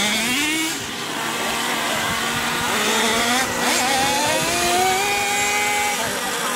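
Small two-stroke nitro glow engine of an RC monster truck revving. Its pitch climbs about half a second in as the truck pulls away, then keeps running at high revs as a buzzing whine that rises and falls.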